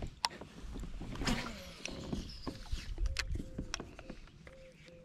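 Baitcasting fishing reel being handled and cranked: a few sharp clicks, then a light whir with a short repeating note about two to three times a second as the line is reeled in.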